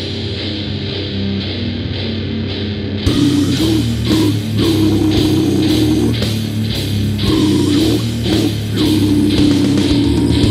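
Heavy metal recording. A distorted guitar and bass riff plays alone at first, then drums and cymbals come in about three seconds in and the full band plays on, louder.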